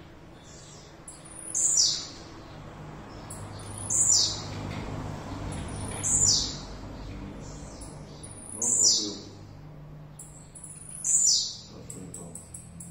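Caged songbird singing a short, high phrase that slides downward, repeated five times at about two-and-a-half-second intervals. This is a fast 'speed' delivery of close to 30 songs a minute.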